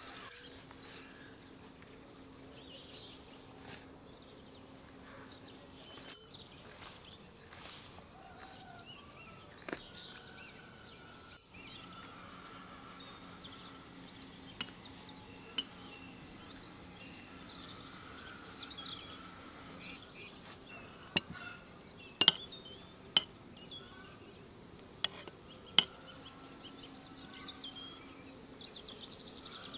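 Small birds chirping and calling in the background. Several sharp knocks stand out about two-thirds of the way through.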